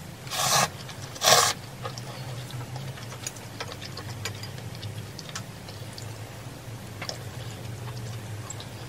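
A person slurping instant cup noodles: two loud slurps in the first second and a half. Then chewing and soft clicks of a metal spoon and chopsticks against the cup.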